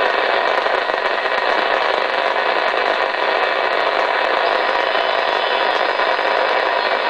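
Steady receiver static (band noise) hissing from a Uniden HR2510 transceiver's speaker, with a few faint steady tones in it and no voice coming through: the distant station's signal is lost in the noise as his beam antenna is turned.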